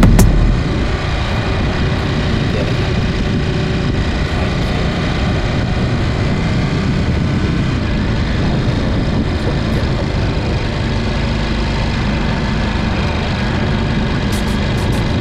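Ducati motorcycle engine running steadily.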